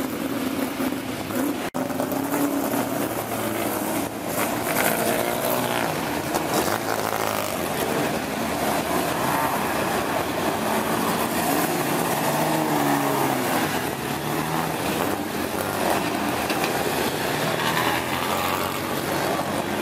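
Several classic touring-car engines, from Minis, Mustangs and Lotus Cortinas, running together and rising and falling in pitch as the cars roll off the warm-up grid.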